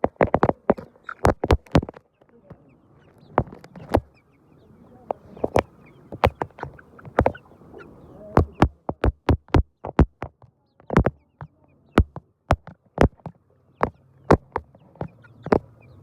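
Irregular sharp taps and clicks, several a second at times, with chickens faintly in the background.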